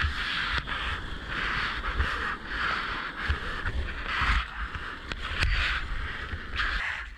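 Whitewater rushing and splashing around a kayak surfing a breaking wave, in surges about a second apart, over a low rumble of water and wind buffeting the GoPro housing.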